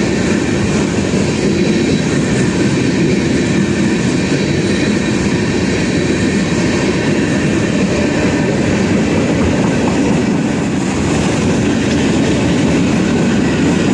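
Freight train cars rolling past: a loud, steady rumble of steel wheels on the rails.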